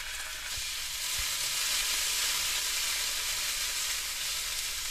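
Chopped garlic and spring onions frying in hot oil in a non-stick pan, sizzling steadily as soy sauce goes in, stirred with a silicone spatula. The sizzle grows louder about a second in and then holds.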